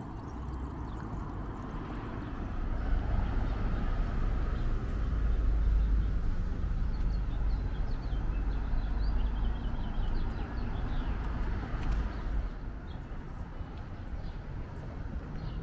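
Street ambience: a low traffic rumble swells to its loudest around the middle, then eases off. Small birds chirp in the second half and again near the end.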